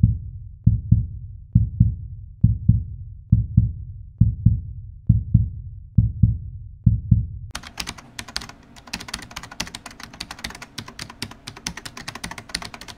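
Intro sound design: a heartbeat-like double thump repeats about once a second. About seven and a half seconds in it gives way to a fast, dense clicking, like rapid typing, over a low hum.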